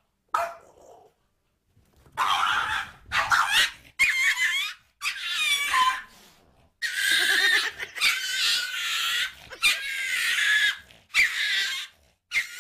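A pet animal crying out again and again: about eight loud, high-pitched calls whose pitch wavers and bends, some short and some drawn out for a second or more.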